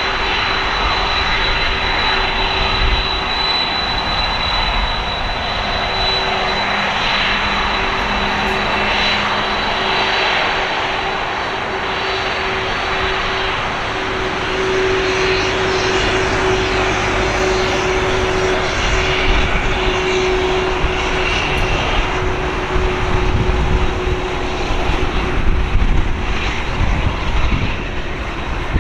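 Jet engines of a Boeing 747-400 freighter taxiing past: a steady rush with a thin high whine over it. The low rumble grows louder and rougher in the last several seconds as the aircraft goes by.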